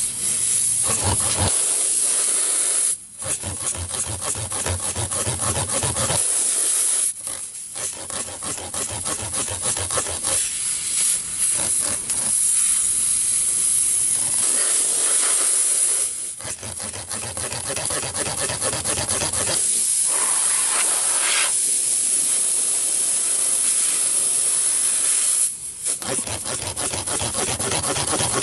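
Tire plug kit's reaming tool being rasped in and out of a puncture in a radial tire's tread, a continuous scraping hiss broken by brief pauses about three seconds in, about seven seconds in, around sixteen seconds and near the end. The reaming enlarges the hole ready for the plug.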